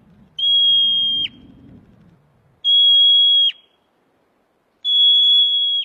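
Three long, steady, high-pitched beeps like an alarm, each just under a second and about two seconds apart; each one ends with a quick drop in pitch.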